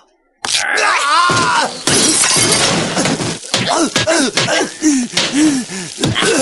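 Cartoon fight soundtrack: after a brief silence, a man cries out over a smash of something breaking, then a stretch of rushing noise and a string of short cries and grunts.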